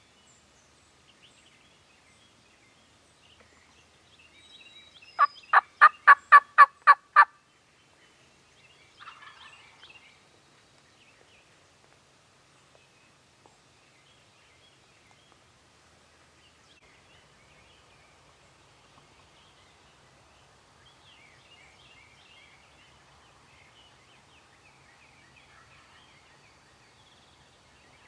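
A loud series of about nine turkey yelps, roughly four a second over about two seconds, a few seconds in. About two seconds after the series ends, a brief faint call answers from far off.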